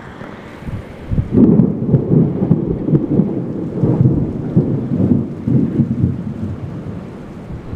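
Heavy rain pouring down, with a long rolling rumble of thunder that starts about a second in and swells and fades for several seconds.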